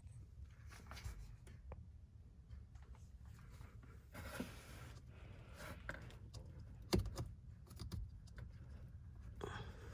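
Handling noises from hands at work: scattered light clicks, a short scraping rustle about four seconds in, and a sharp knock about seven seconds in.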